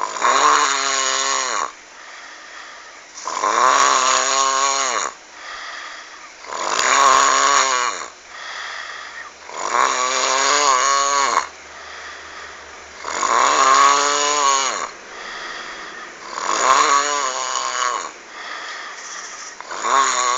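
Heavy snoring: a loud snore about every three and a half seconds, seven in all, each with a pitch that dips and rises, and quieter breathing between.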